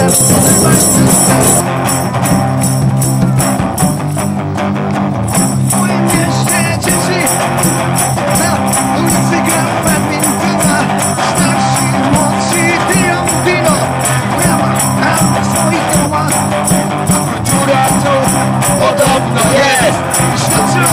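Live rock music from a street band: an electric guitar played through a small amplifier over a steady percussion beat, with a singing voice coming in at times.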